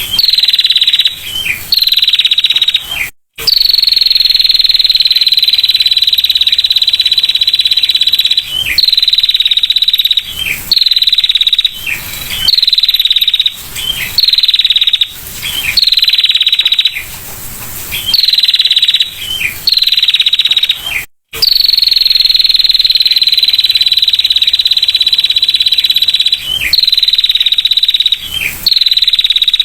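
Female prinia (prenjak) giving its rapid, high-pitched 'ngetir' trill in long unbroken runs of one to several seconds, with short breaks between them. The sound cuts out completely twice, for an instant, as the recording is spliced.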